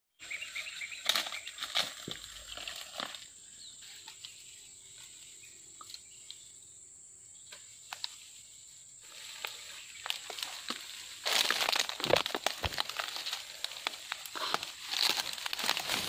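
Footsteps crunching on dry palm fronds and twigs, then dry grass and leaves rustling and crackling as they are pushed aside by hand, loudest in the second half.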